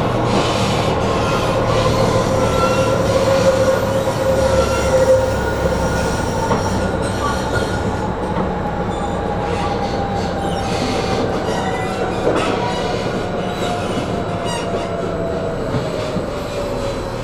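A tram running along its rails, with a steady rolling rumble and thin, high wheel-squeal or motor tones. One tone slowly falls in pitch through the second half.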